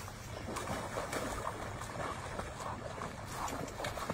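Irregular splashing and sloshing of icy lake water among floating chunks of broken ice, as a person swims and pushes through a hole in the ice.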